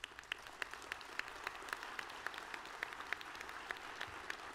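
Audience applauding steadily, with individual hand claps distinct in the crowd.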